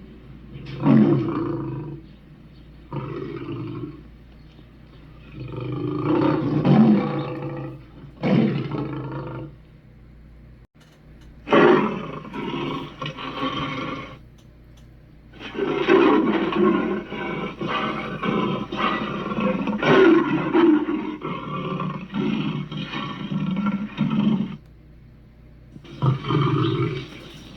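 Monster roars and growls of the Muppet character Sweetums, a rough voice sounding in repeated bursts with short pauses, the longest lasting several seconds in the second half.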